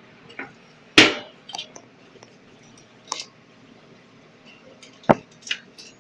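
A few sharp knocks and light clinks against the metal spiral coils and panels inside a snack vending machine. The loudest comes about a second in, with others near three seconds and twice near five seconds.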